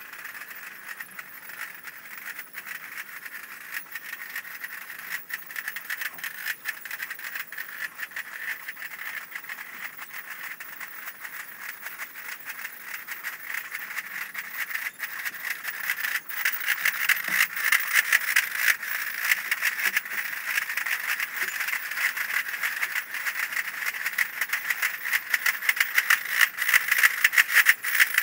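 Basel Fasnacht drums played in rapid rolls and strokes, with piccolos over them, by a marching clique. The sound grows clearly louder about halfway through as the group draws near.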